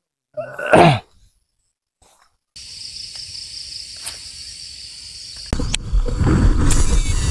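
Insects buzzing steadily in a high band. About five and a half seconds in, a loud low rumble of wind and handling noise on the camera joins them, with faint rising whines over it near the end. Near the start there is one short falling sound.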